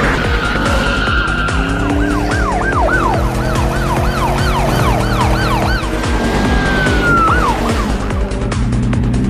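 Police siren: a held tone, then a quick rising-and-falling yelp at about two cycles a second, then another long tone that drops away, over steady background music.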